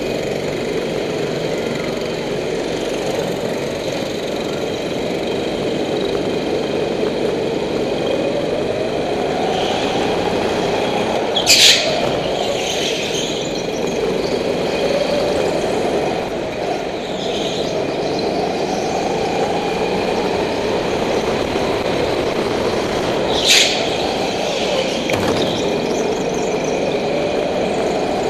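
Go-kart motor heard from the driver's seat, its pitch rising and falling in long swells as the kart speeds up and slows for the corners, with two brief high-pitched squeals about twelve seconds apart.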